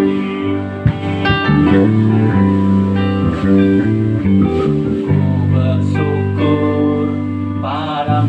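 Band instrumental music: electric guitar playing a melodic lead over bass guitar and keyboard chords.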